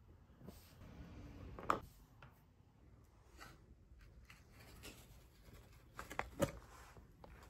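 Faint handling noises of scrap copper wire and a crucible being moved, with a few light clicks and taps: one under two seconds in and two close together about six seconds in.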